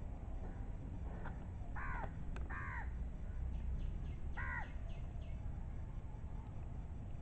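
A crow cawing three times: two caws close together about two seconds in, and a third a couple of seconds later, over a steady low background rumble.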